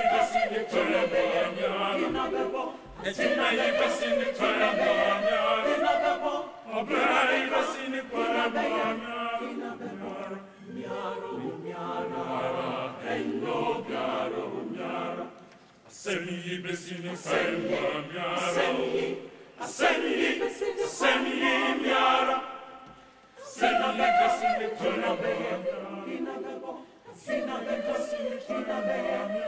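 A choir of voices singing a chant-like song, largely unaccompanied, in repeated phrases with short breaks between them.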